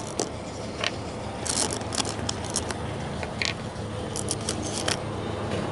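Irregular small clicks and short scrapes of hand-handled hardware: mounting bolts being picked out of their cup and set against the metal seat base, over a steady low rumble.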